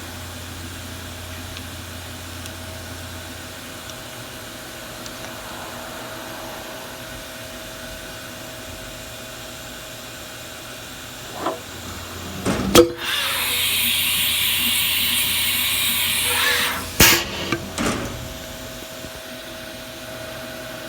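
Haas VF4 CNC mill cycling its tool release. A couple of sharp clunks come about halfway through, then a hiss of air for about four seconds, then more clunks, all over a steady machine hum. Afterwards the tool release piston sits all the way up and no longer touches.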